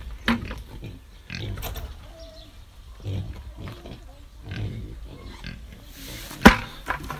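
Wild pigs grunting low every second or two, with a sharp knock about six and a half seconds in.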